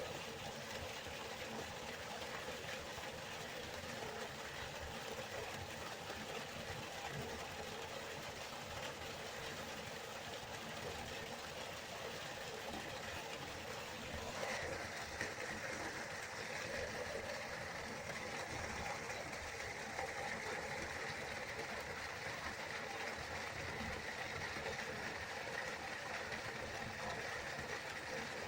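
Waterfall: a steady rush of falling water, changing a little in tone about halfway through to a brighter hiss.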